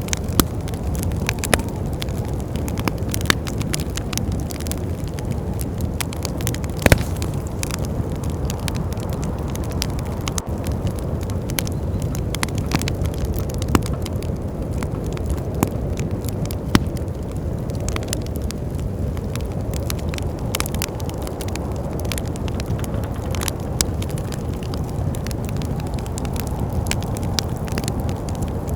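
Wood fire crackling in a fireplace, with scattered sharp pops, the loudest about seven seconds in, over a steady low rumble of winter wind.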